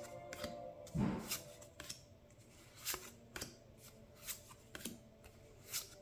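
Trading cards from a booster pack being handled and flicked through one at a time: a series of light card snaps and clicks, with a louder thump about a second in.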